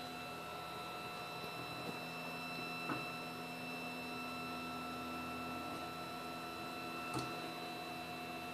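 3D printer carrying a 2.8 W diode laser module, running an image engraving: a steady hum with a high-pitched whine, and faint ticks about three seconds in and again near the end.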